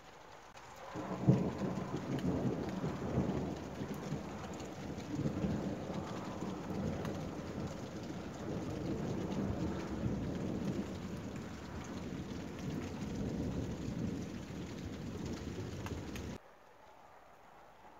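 Thunder after a nearby lightning strike: a sharp crack about a second in, then a long, uneven rolling rumble over the sound of heavy rain. The rumble cuts off abruptly near the end, leaving only faint rain.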